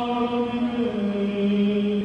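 A man singing into a microphone, a slow melody of long held notes.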